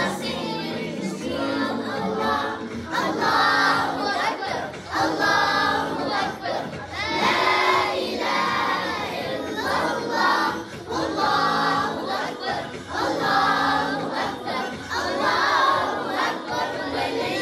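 A group of children singing a song together, phrase after phrase about every two seconds.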